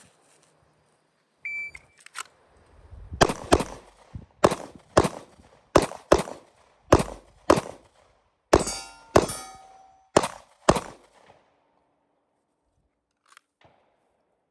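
A shot timer beeps once, then a Glock 19 9mm pistol fires about a dozen quick shots in pairs over roughly eight seconds, during a timed two-body, two-head drill.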